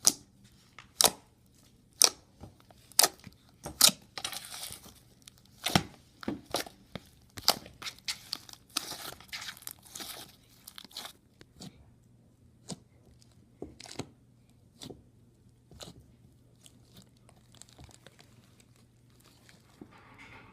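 Slime being squeezed and poked by hand: a series of sharp pops and clicks, about one a second at first and sparser later, with stretches of crackling, crunchy squishing between them.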